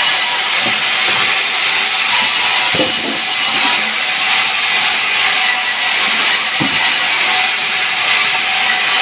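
Sawmill saw running on sengon wood: a loud, steady hiss and whine, with a few low knocks about three and seven seconds in.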